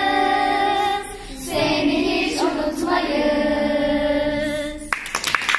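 Children and a woman singing together, holding long final notes of a song. About five seconds in the singing gives way to a sudden burst of cheering.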